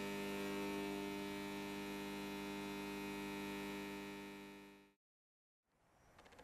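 An intro sound effect: one sustained chord of many steady tones, struck sharply just before and holding evenly, then fading out about five seconds in. Faint rustling and a few light clicks follow near the end.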